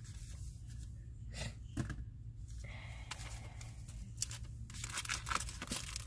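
Paper and clear plastic craft packaging rustling as it is handled and set down on the desk, with scattered light taps.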